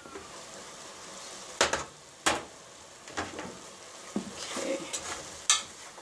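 Ground meat sizzling in a covered pot as the lid is lifted off and a spoon stirs it, with a few sharp clacks of lid and spoon against the pot. The sizzling is the sign that the meat's liquid has cooked off.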